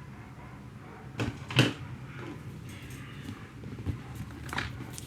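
A few sudden knocks and handling sounds, the loudest about a second and a half in and two more near the end, over a steady low hum.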